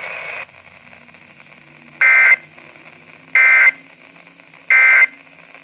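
Emergency Alert System SAME digital data bursts, three short identical warbling squawks about a second and a half apart, over faint radio hiss. They are the end-of-message code that closes the severe thunderstorm warning.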